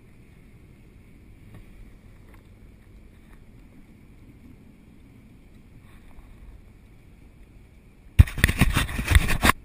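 Quiet, low wind and water rumble around a kayak. Then, about eight seconds in, a sudden loud stretch of rapid knocking and rattling right at the microphone.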